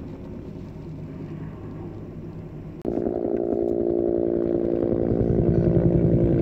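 A steady engine hum. About three seconds in, a much louder engine drone cuts in suddenly with a strong steady pitch and holds.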